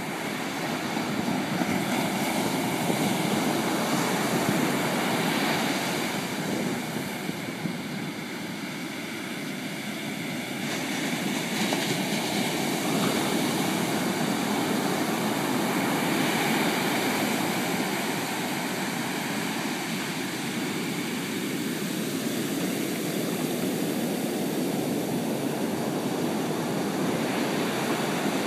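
Atlantic surf breaking on the beach at high tide: a steady rush of waves that eases off about a third of the way in and then builds again.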